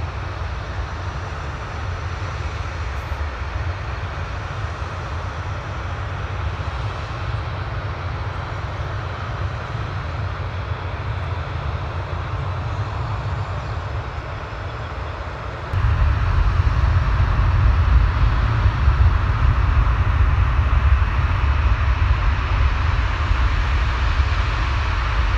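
Jet airliner engines heard from the airfield edge: a steady rushing noise over a heavy low rumble, which jumps suddenly louder about two thirds of the way through.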